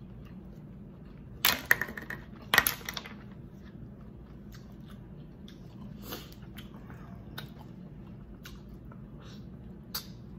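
Boiled seafood shells being cracked and pulled apart by gloved hands: two loud crunching cracks about one and a half and two and a half seconds in, then softer scattered clicks and taps.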